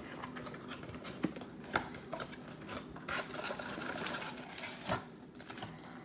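Trading card pack being opened and handled: foil wrapper crinkling and tearing, with scattered clicks and taps of cards and packaging, the loudest tap a little before the five-second mark.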